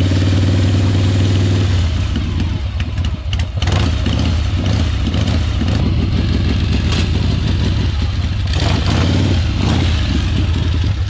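V-twin chopper motorcycle engine running loud: a steady idle for about two seconds, then uneven running with repeated throttle blips.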